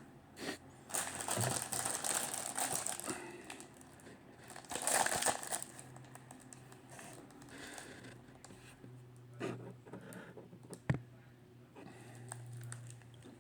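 Crinkling and rustling of packaging being handled, in two loud bursts, followed by a few light knocks.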